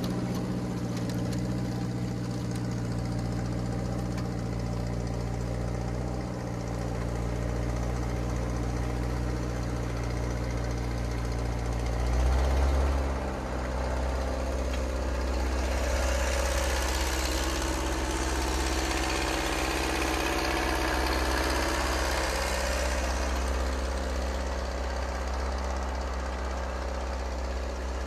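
Half-track tractor's engine running as the tractor drives under load through about a foot of snow, with a brief low surge about twelve seconds in.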